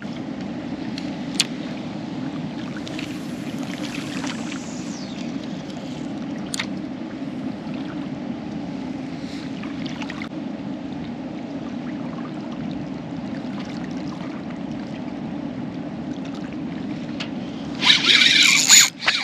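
Strong wind buffeting the microphone, a steady rushing noise, with a couple of faint clicks. Near the end comes a sudden loud rush of noise.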